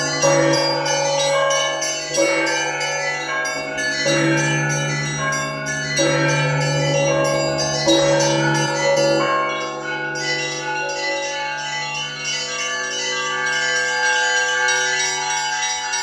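Russian Orthodox church bell peal: several bells of different sizes ringing together. A deep bell is struck about every two seconds for the first half, then fades, while smaller bells keep ringing.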